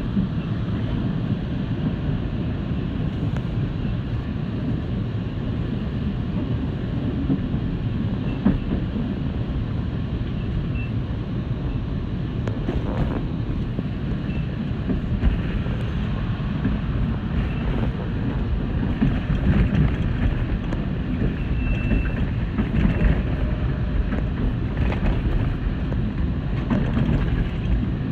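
TTC Line 2 subway train running on the rails, heard from inside the car: a steady low rumble, with a couple of brief sharp clacks.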